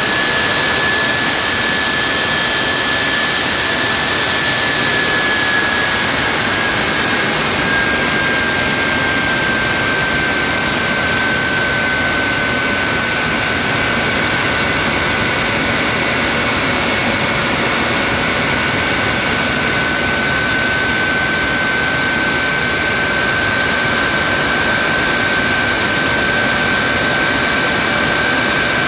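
Rolls-Royce/Snecma Olympus 593 turbojet running steadily on a ground test rig: a loud, even rush with a high whine that dips slightly in pitch about six seconds in, then holds steady.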